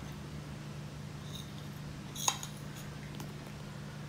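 Quiet room tone with a steady low hum, broken by a few faint light taps, the clearest about two seconds in. The taps are a ceramic bowl and utensil knocking lightly as condensed milk is poured and scraped into a plastic bowl of powdered milk.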